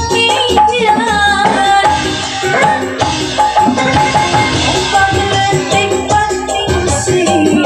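Live wedding band playing Sundanese pop: a wavering, ornamented vocal line over keyboard and a steady percussion beat.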